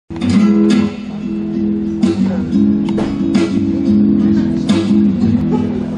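Guitar strumming chords, the instrumental intro of a song played live.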